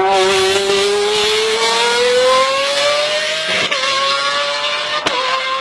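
Lamborghini engine accelerating hard, its pitch climbing steadily. It shifts up once a little past halfway, with a sharp drop in pitch, and again near the end with a click, climbing again after each shift.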